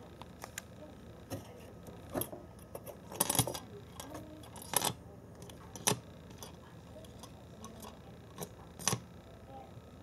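A cat playing with a thin plastic toy frog on a wooden floor, making scattered sharp clicks and taps. The loudest come in a quick cluster about three seconds in, then single ticks near five, six and nine seconds.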